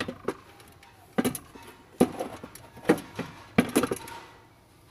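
A series of sharp knocks and clatters, about five over four seconds, from parts being handled in the engine bay.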